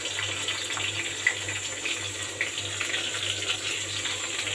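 Tadka sizzling in hot ghee in a kadhai, a steady hiss with small crackles and pops from the cumin seeds, garlic, curry leaves and hing frying, over a low steady hum.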